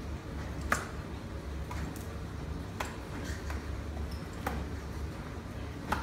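A handful of sharp, separate clicks and ticks, the loudest about a second in, over a low steady room hum.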